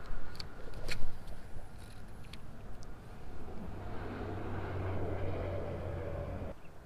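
A motor vehicle's engine hum that builds a few seconds in and cuts off abruptly near the end, after a few sharp clicks.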